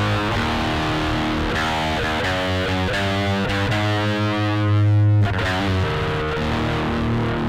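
Single-cutaway electric guitar played with a distorted tone: held notes and chords ringing with sustain. The loudest note swells about four seconds in and is cut off sharply about a second later.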